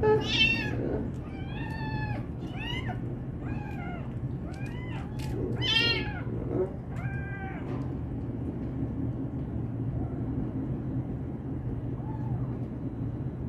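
Orphaned young kitten mewing over and over as it is held for bottle-feeding: about ten short high cries that rise and fall, crowded into the first seven seconds or so, then a few fainter ones. A steady low hum runs underneath.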